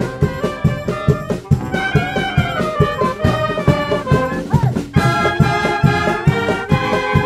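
A brass fanfare band playing, with trumpets and trombones over a steady beat. After a short break just before five seconds in, the full band comes in louder with dense held chords.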